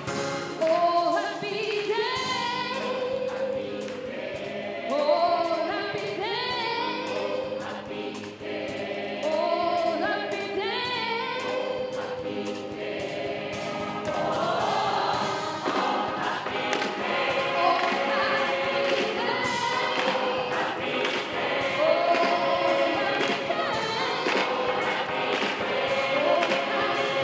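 Gospel choir of mixed voices singing with a live band of drum kit and keyboard, over a steady beat.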